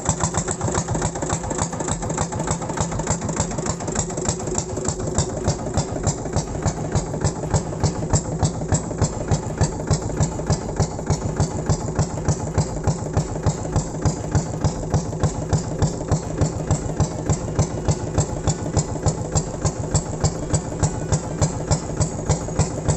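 Small inboard engine of a wooden river longboat running steadily under way, its exhaust beating in an even, rapid rhythm.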